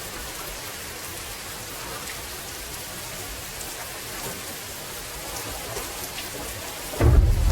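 Steady rainfall, an even hiss with scattered drop ticks. Near the end a sudden loud, deep rumble of thunder breaks in.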